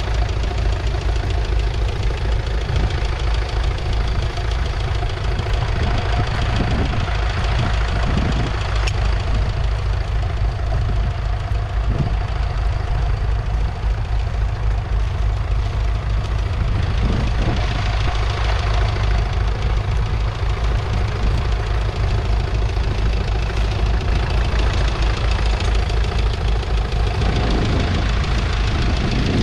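McCormick International B414's 2.5-litre four-cylinder diesel engine running steadily under load as it pulls a two-furrow mounted plough through the soil.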